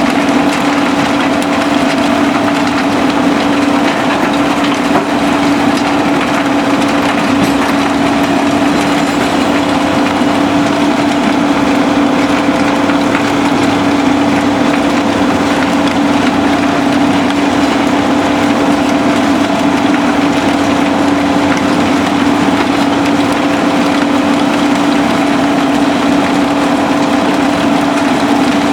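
SBM mobile impact crusher running steadily while crushing concrete: a constant machine hum under a continuous dense rattle of rubble, with diesel engine noise from the feeding excavator mixed in.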